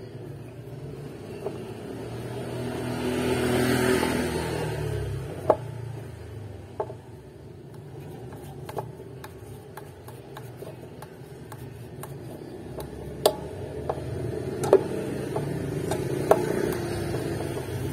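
Screwdriver working the metal neck-plate screws on the back of an electric guitar: several sharp single clicks and taps spaced a second or more apart. Underneath runs a low steady rumble that swells and fades about four seconds in.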